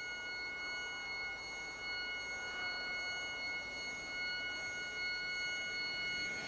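An eerie electronic drone of several steady high tones held together over a faint hiss, part of a film soundtrack's sound design. It cuts off suddenly near the end.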